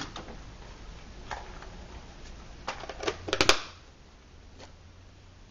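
A few light clicks and taps, then a quick run of sharp clicks about three and a half seconds in, from things being handled on a wooden workbench. After the clicks the steady background hiss drops noticeably.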